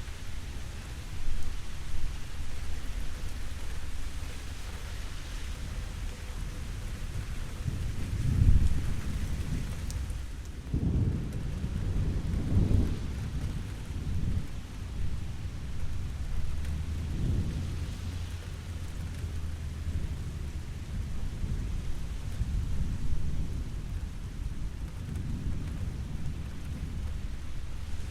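Steady rain falling, with low rolling thunder rumbling in several swells, the strongest about eight seconds in and again a few seconds later.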